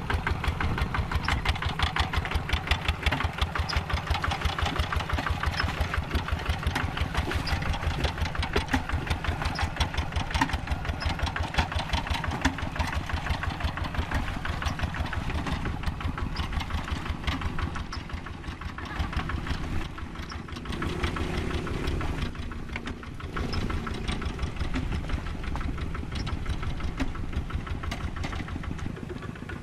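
Single-cylinder diesel engine of a Quick G3000 Zeva two-wheel hand tractor running with a rapid, even chugging beat. It goes quieter for a few seconds about two-thirds of the way through, then picks up again.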